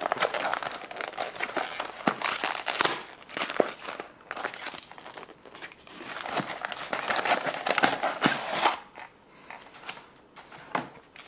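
A tape-sealed cardboard ration box being opened by hand and its packaging handled: irregular crinkling and rustling in two busy stretches, dying down over the last couple of seconds.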